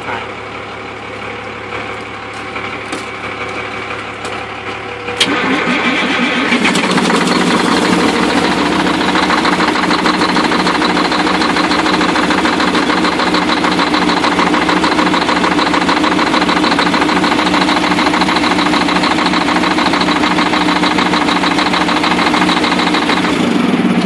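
Semi truck's diesel engine cranking and catching about five seconds in, then running loud and steady, coughing and hacking, before falling off near the end. The owner puts its trouble down to a main fuel line he has not yet checked.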